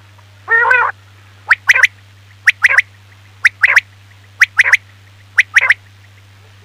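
Male common quail (batera) song used as a hunting lure call: one short, low nasal note, then the three-note phrase, a single sharp note followed by a quick pair, repeated five times about once a second. A steady low hum runs underneath.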